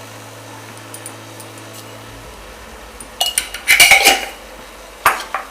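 Metal kitchen utensils clinking against a cooking pot: a quick cluster of clinks about three seconds in and one sharp clink near the end.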